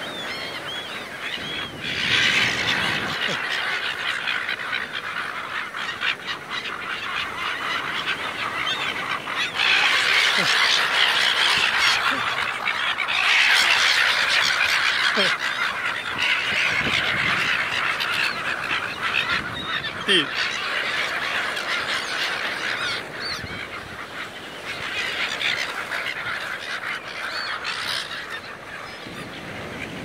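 A large flock of silver gulls squawking together in a dense, overlapping chorus of harsh calls, loudest in the middle stretch and thinning toward the end.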